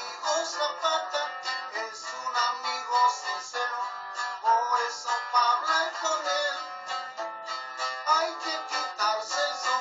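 Acoustic guitar strummed and picked steadily, playing a Mexican corrido accompaniment.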